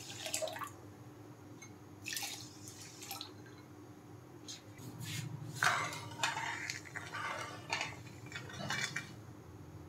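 Water poured and dripping onto sugar in a kadhai, with light clinks of utensils against the metal pan, as sugar syrup is started. The pouring is loudest about halfway through.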